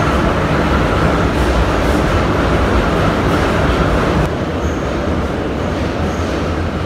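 Running noise of an 81-717 metro car heard from inside while the train runs through the tunnel: a steady rumble and hiss of wheels on rail and running gear. About four seconds in, the hiss drops a little.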